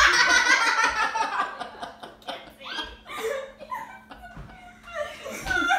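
Women laughing hard: loud, high-pitched laughter at the start that breaks into shorter, quieter bursts of giggling.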